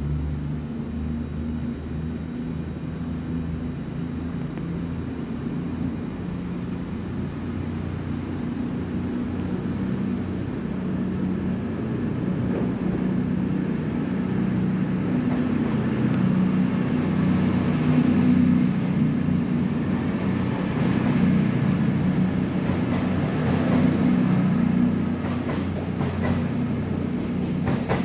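CrossCountry Voyager diesel multiple unit running in along the platform, its underfloor diesel engines humming. It gets steadily louder as it approaches, is loudest as it passes close by in the second half, then eases off slightly near the end.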